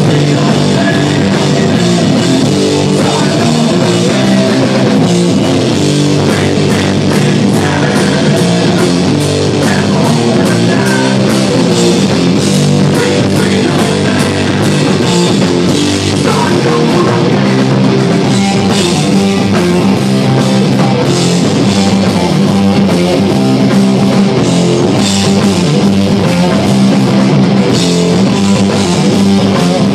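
Live stoner rock band playing loud, with distorted electric guitars, bass and a drum kit going steadily throughout.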